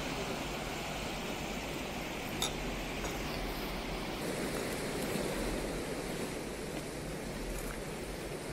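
Steady rushing of a river in flood, its fast, swollen water running as an even roar, with one brief sharp click about two and a half seconds in.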